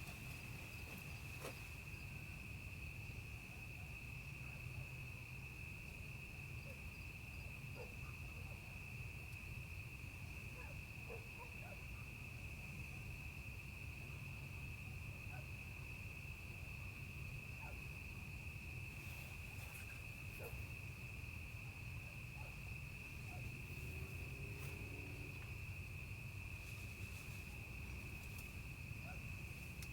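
Insects keep up a steady high-pitched chorus without a break, over a low steady rumble.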